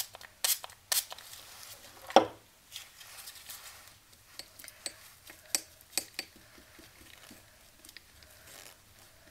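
Paintbrush working thick water-based block printing ink in a ceramic palette well, with many small taps and scrapes against the ceramic. A few short sharp sounds come in the first second, and one loud knock about two seconds in.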